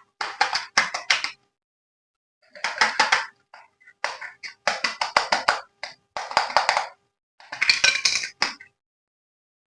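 Handling of packaging and plastic parts: bursts of rustling and crinkling with sharp clicks, each under a second, coming several times with short pauses between.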